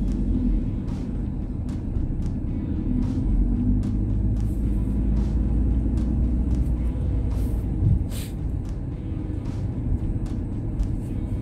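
Car driving in city traffic: a steady low road and engine rumble with scattered short clicks, and a brief hiss about eight seconds in.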